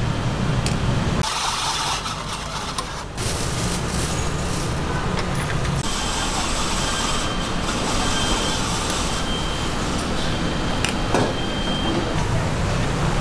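Steady street ambience with a low traffic rumble. The rumble drops away abruptly about a second in and returns about three seconds in. A few light clicks sound over it.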